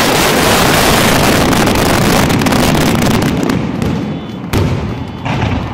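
Aerial firework shells bursting overhead in a dense barrage, a continuous din of bangs that thins out after about three seconds, with a single sharp bang about four and a half seconds in.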